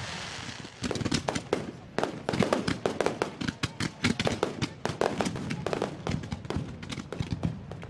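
Aerial fireworks bursting. A fizzing hiss gives way, about a second in, to a rapid barrage of sharp cracks and bangs, several a second.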